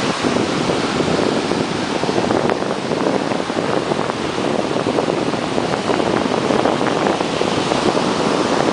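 Steady wind noise on the microphone, mixed with ocean surf washing on the beach.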